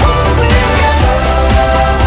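Background pop music with a strong bass and a steady beat.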